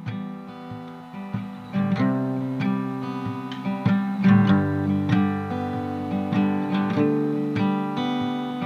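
Background music: acoustic guitar strumming chords with plucked notes, growing louder about two seconds in.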